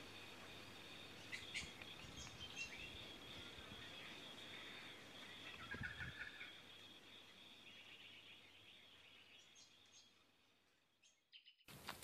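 Faint backyard bush ambience: a few short, high bird chirps over a steady high-pitched drone, fading out near the end.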